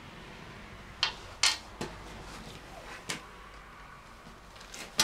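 Tools and parts being handled at a workshop bench: a handful of separate sharp knocks and clanks, the loudest about a second and a half in and another right at the end, over a low steady hum.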